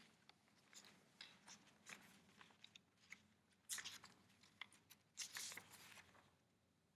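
Faint rustling and handling of paper sheets, with scattered soft clicks and two brief louder rustles, about four and five and a half seconds in.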